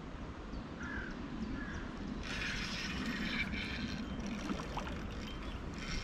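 Spinning reel being cranked as line is wound in, over a steady low rumble, with a few faint bird chirps about a second in.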